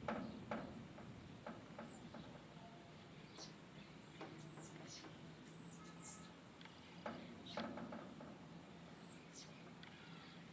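Faint, thin, high-pitched bird chirps: short single calls that dip slightly in pitch, scattered through, with a few sharp knocks near the start and again about seven seconds in.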